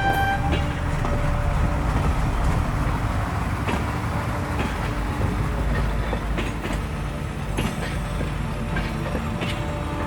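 A train rolling along its track: a steady rumble with scattered clicks from the wheels over the rails.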